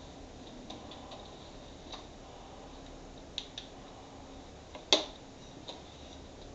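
Small clicks and knocks from handling a hot glue gun while a new glue stick is loaded into it, with one sharp, much louder click about five seconds in.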